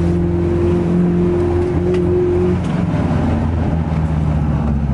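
Nissan S13's turbocharged SR20DET four-cylinder engine running under way, heard from inside the cabin, through a short cut-down exhaust pipe. A steady higher tone in the engine sound stops about two and a half seconds in.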